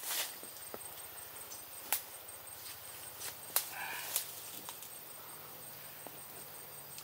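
Leaves rustling and a few sharp taps as green leaves are packed into and around the mouth of a charred bamboo tube, with a short chirp about four seconds in and a faint steady high tone behind.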